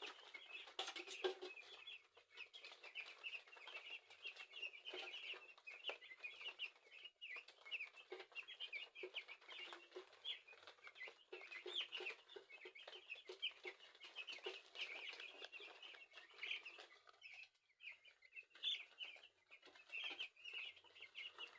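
Many week-old chicks peeping constantly, a faint chorus of short, high, overlapping chirps. There is a brief click about a second in.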